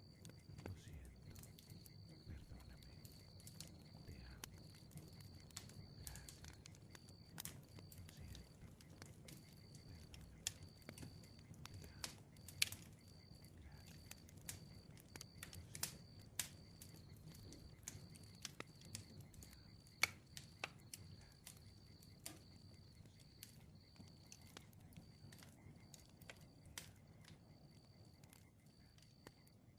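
Faint outdoor nature ambience: a high chirring repeated in short pulses, with scattered sharp clicks over a low rumble.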